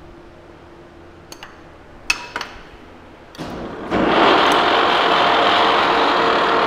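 A few clicks from the controls being worked, then about four seconds in the Lucas 441B-48 horizontal boring mill's spindle starts and runs with a loud, steady, even mechanical noise, driving its 8-inch face mill.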